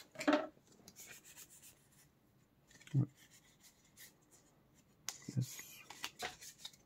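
Quiet handling of Pokémon trading cards: soft sliding and rubbing of cards against each other, with faint clicks and two louder soft knocks about 3 and 5 seconds in.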